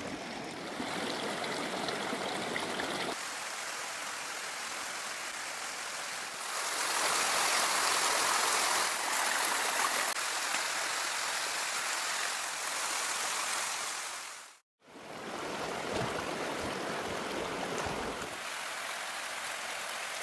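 Running water, a steady rushing flow, louder and brighter for several seconds in the middle, broken by a sudden drop-out to silence about three-quarters of the way through.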